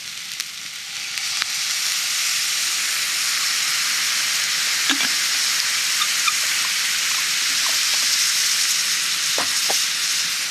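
Sausage and rice sizzling hard in a hot cast iron skillet set in campfire coals. The sizzle swells about a second in as a splash of water hits the pan, then holds steady, with a few faint ticks.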